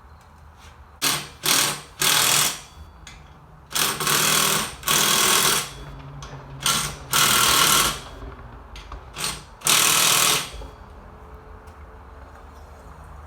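A handheld power tool run in about ten short trigger bursts, from about a second in until about ten seconds in.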